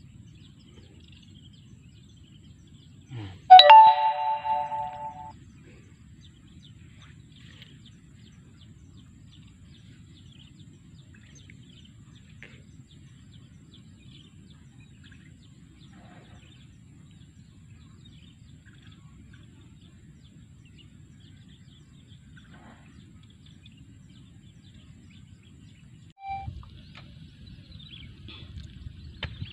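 A single bell-like chime rings out about three and a half seconds in, several clear tones together, and dies away over about two seconds. Under it runs a faint steady low rumble with faint bird chirps, and the low noise grows near the end.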